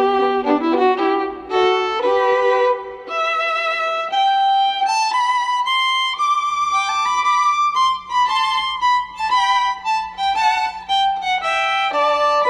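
Background music: an instrumental melody of short pitched notes.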